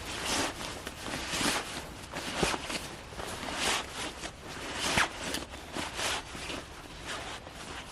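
Footsteps crunching on the woodland floor, about one step a second.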